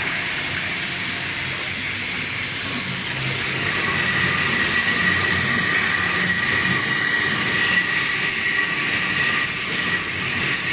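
Horizontal ribbon mixer running at speed with water in its barrel: a steady mechanical whine over the sound of the ribbon agitator churning the water.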